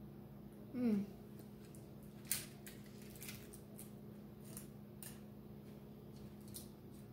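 Close-up eating sounds of someone eating rice and fish with her fingers: scattered soft clicks and smacks of chewing and of fingers working the food. About a second in there is a brief falling 'mm'-like vocal sound, the loudest moment. A steady low hum runs underneath.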